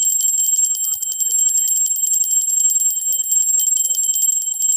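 A small temple bell (ghanti) rung continuously, its clapper striking rapidly many times a second over high, steady ringing tones.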